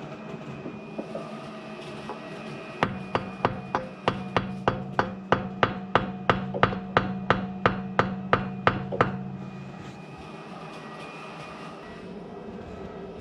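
A hammer striking a Land Cruiser 200's stuck wheel, about twenty evenly spaced blows, roughly three a second, to free a wheel that will not come off the hub. A low hum sounds under the blows and stops soon after them.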